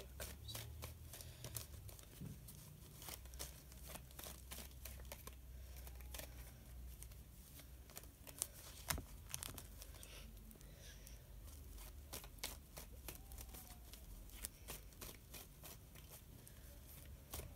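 Deck of tarot cards being shuffled by hand, faintly: many short, irregular flicks and clicks of card on card, over a low steady hum.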